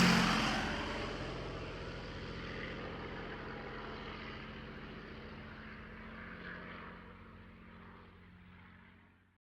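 A motor vehicle's engine moving away just after passing by. Its steady hum and road noise fade out gradually over about nine seconds.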